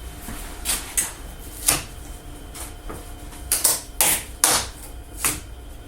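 Irregular sharp knocks and clacks, about nine in all, of cut wooden pieces being handled and set down on the CNC bed, over a low steady background hum.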